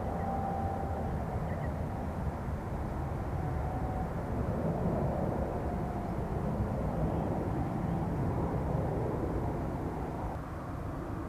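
Steady low rumble of an airplane's engines and rushing air, with no distinct events.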